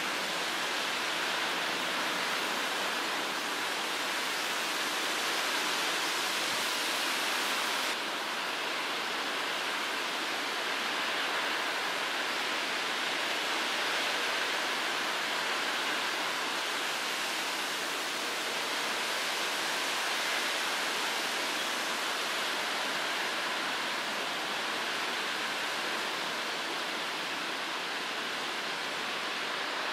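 Steady, even hiss of distant outdoor ambience, with no single distinct sound standing out. It shifts slightly about eight seconds in, losing a little of its top end.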